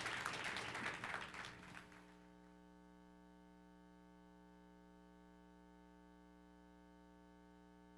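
Audience applause dying away over the first two seconds, followed by a steady electrical mains hum with a faint buzz.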